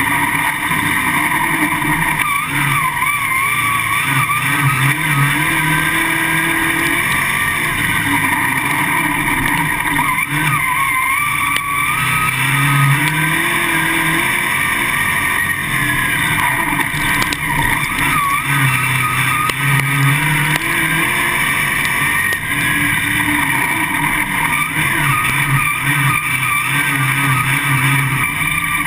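Winged dirt late model race car's V8 engine heard from inside the car at racing speed. The revs rise and fall again and again through the laps.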